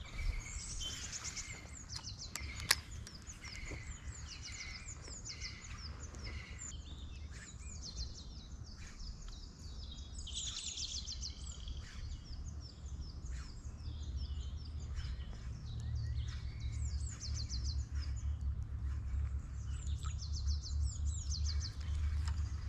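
Songbirds singing, many quick high chirped and trilled phrases overlapping and repeating throughout. Under them runs a steady low rumble that grows a little stronger in the second half, with one sharp click about three seconds in.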